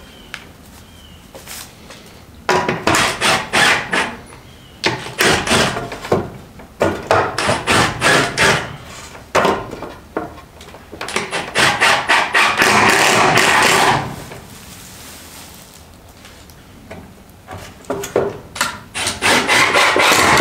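Hammer striking the wooden boards of a gate in several quick runs of blows, about four a second, with a steady noisy stretch of about three seconds near the middle.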